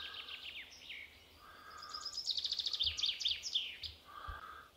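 A small songbird singing: rapid trilled phrases of quick, falling high notes, a short one at the start and a longer one from about two to four seconds in, with shorter, lower notes repeating in between.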